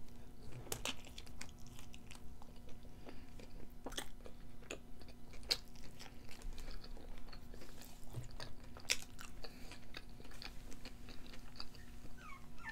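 A person biting into and chewing a cheeseburger, making a steady run of small, wet mouth clicks.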